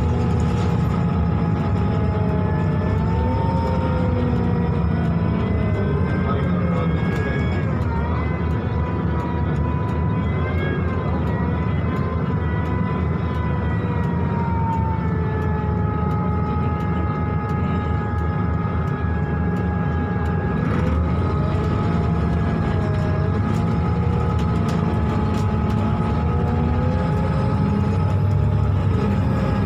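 Scania K280UB bus running, heard from inside: a steady low engine and road rumble with several whining tones above it that slowly waver in pitch. The uploader takes the whine for the engine's cooling fan spinning extra fast because the engine is overheating.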